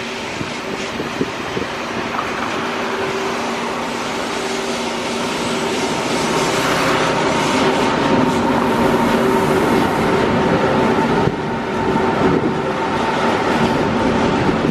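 Freight train hauled by two HXD3 electric locomotives approaching and passing, growing louder until about halfway through and staying loud as the boxcars roll by. Steady humming tones from the locomotives sit over the rolling noise of wheels on rail.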